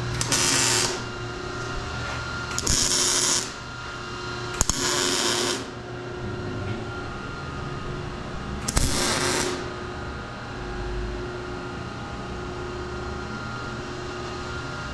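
Handheld power grinder run in four short bursts of about a second each, grinding metal exhaust pipe, over a steady low hum.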